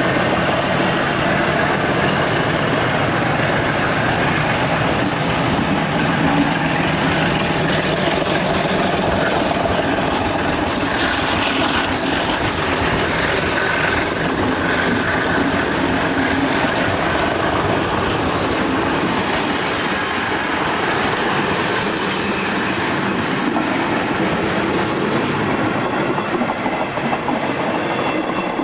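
Passenger coaches rolling close past at a steady pace behind a departing MLW MX627 diesel locomotive, with a continuous clatter of wheels over the rails and some wheel squeal.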